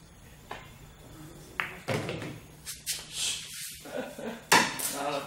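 Pool cue striking the cue ball about half a second in, then a sharper click of ball on ball about a second later. Louder rustling noises follow, and a man's voice comes in near the end.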